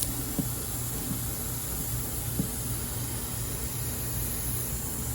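Steady background hiss with a constant low hum, and a few faint soft knocks.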